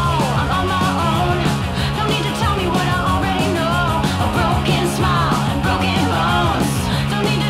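Background rock music with a melody line that slides up and down in pitch.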